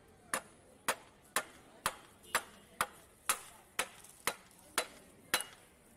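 Scales being scraped off a piece of catla fish against a bonti blade: a sharp, crisp click with each stroke, eleven in a steady rhythm about twice a second.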